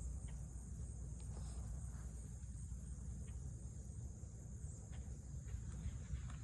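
Steady high-pitched insect chirring, with a low rumble underneath and a few faint clicks.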